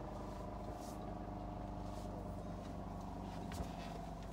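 A steady machine hum holding a few even tones, with a single sharp knock about three and a half seconds in.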